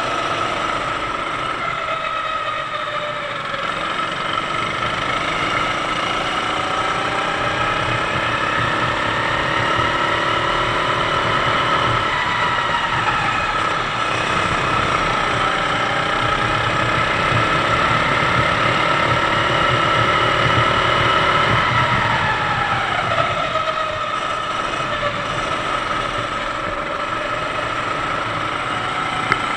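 Sodi kart's 390cc four-stroke engine heard from onboard while racing, the revs climbing steadily and then falling away twice, about halfway and again near the end.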